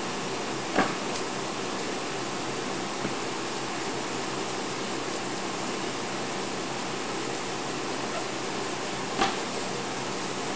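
Steady, even hiss of background noise, broken by two short knocks, about a second in and near the end, as stacks of flat corrugated cardboard box blanks are handled and bumped down.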